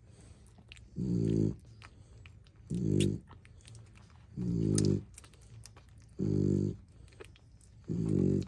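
Nursing Frenchton mother dog breathing with a low groan on each breath, five times at an even pace of about one every second and a half. Faint clicking from the suckling puppies comes in between.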